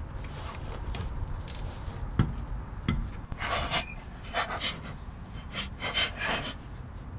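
A person breathing hard in a series of short, heavy exhales about a second apart, after two sharp clicks or knocks.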